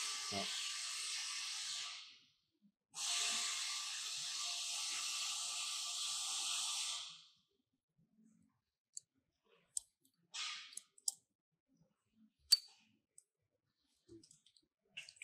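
Two steady hissing noises, the first about two seconds long and the second about four, each starting and stopping sharply. Then scattered small clicks, a brief rustle and one sharp click as the bicycle brake lever and its cable are handled.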